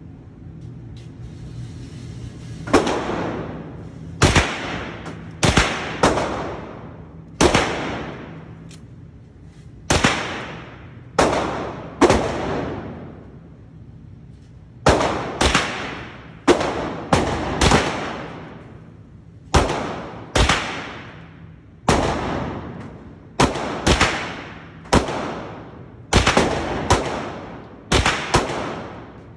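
Taurus G3C 9mm pistol firing about two dozen shots, singly, in pairs and in quick strings, each shot ringing out with a short echo.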